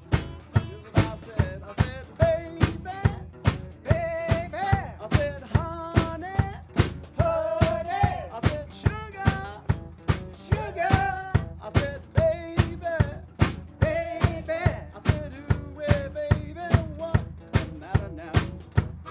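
A small band playing live: a steady drum-kit beat under strummed acoustic guitar, with a harmonica melody that bends and slides in pitch.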